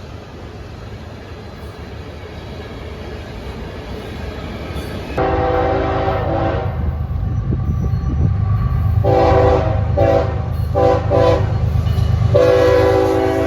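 Rumble of an approaching train growing louder, then about five seconds in the locomotive's horn sounds a chord of several tones in long and short blasts, like a grade-crossing signal; the last long blast runs on past the end.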